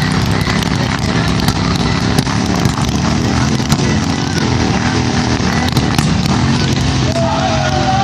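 Harley-Davidson V-twin motorcycle engines running at low revs, with irregular sharp pops and faint voices.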